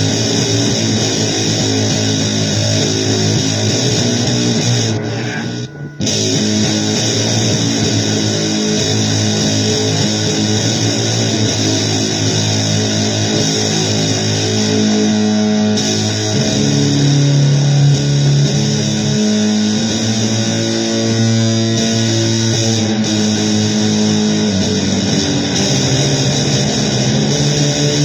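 Guitar music in a noisy blues vein, with dense sustained notes. It dips out briefly about five seconds in.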